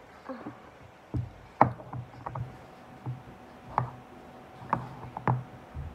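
Handling noise: a series of about six sharp knocks and taps as small plastic containers and packages are picked up and set down close to the microphone, the loudest about one and a half seconds in.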